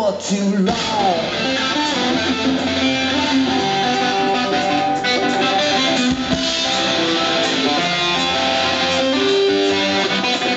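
Live rock band playing an instrumental break between sung verses, led by electric guitars with sustained, melodic notes over the band.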